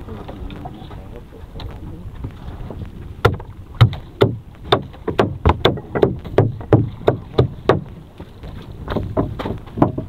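Gill net being hauled in over the side of a fibreglass boat, knocking sharply against the hull two or three times a second from about three seconds in, with a few more knocks near the end, over a steady low rumble of wind and sea.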